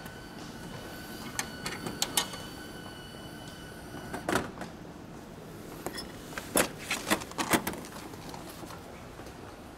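Vending machine dispensing a boxed key light: a few clicks from the mechanism while a steady high tone sounds, a single knock about four seconds in as the box drops into the pickup slot, then a quick run of clacks a few seconds later as the slot's flap is pushed open and the box is taken out.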